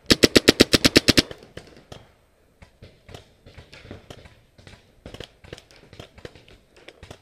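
Paintball marker firing a rapid burst of about a dozen shots in just over a second, close and loud. After it come scattered fainter pops of paintball fire.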